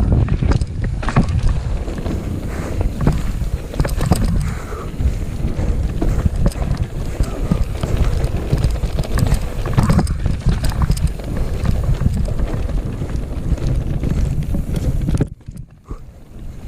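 Mountain bike descending a rough trail: wind rushing over the microphone, with tyres on dirt and the bike rattling and knocking over roots and rocks. The noise drops away sharply for about a second near the end.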